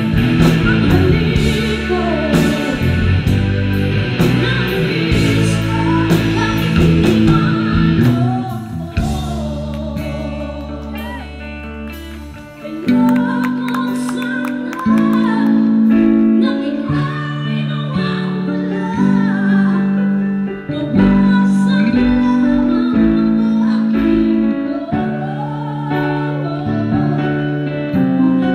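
A woman singing lead live with a Filipino rock band of electric guitars, in a ballad. About a third of the way in the band drops to a softer, sparser passage, then comes back in full with strummed chords under the voice.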